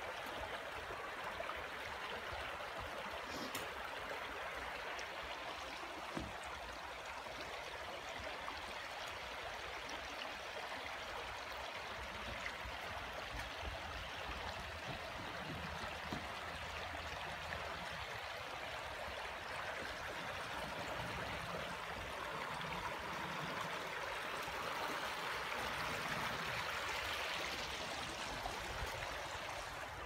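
A shallow, rocky stream babbling steadily over stones and small riffles, a little louder near the end.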